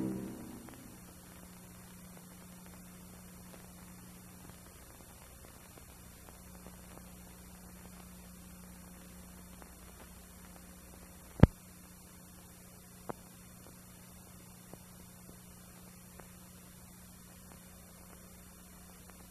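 Steady low electrical mains hum with faint hiss on the soundtrack, as the last timpani-and-orchestra chord dies away in the first second. A sharp click comes about 11 seconds in, and a fainter one follows near 13 seconds.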